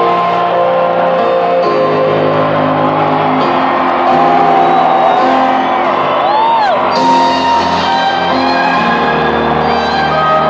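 Live electronic dance music playing loud through an arena sound system, with held synth chords, heard from the crowd. A few sliding whoops rise over the music about halfway through.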